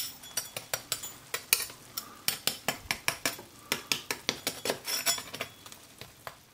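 Knife blade cutting into and scraping over the hard, crispy crackling of oven-roasted pork shanks: an irregular run of sharp crunches and cracks, several a second, the sign that the skin has roasted fully crisp.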